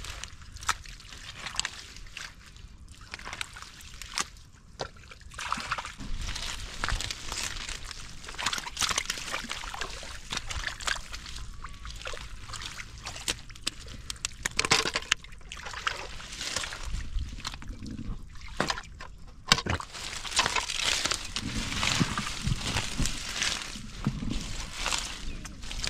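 Hands groping and pulling through wet mud, shallow water and water hyacinth, with irregular sloshing and squelching and many short sharp splashes and clicks.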